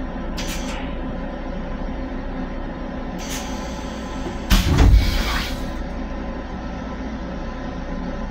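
Steady rumble and hum of a Long Island Rail Road M7 electric railcar, heard inside its small restroom. Two short hisses come about half a second and three seconds in, and a loud thump about four and a half seconds in is the loudest sound.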